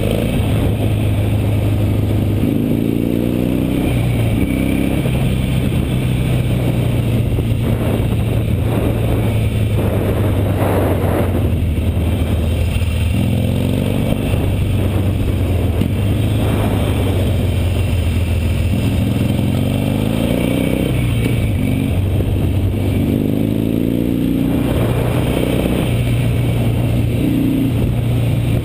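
Harley-Davidson Nightster's V-twin engine running under way, its pitch climbing several times as the rider rolls on the throttle between corners and dropping back in between, over a steady rush of wind and road noise.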